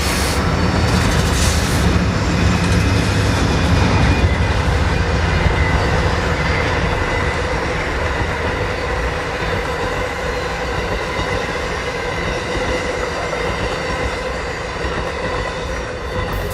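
Amtrak Empire Builder passenger train rolling past on the rails: a loud, steady rumble of wheels and cars, with a faint thin whine above it, easing off slightly after the first few seconds.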